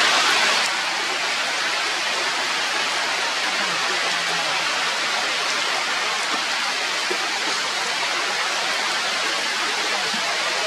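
Steady rain falling, a dense even hiss, slightly louder for the first half-second.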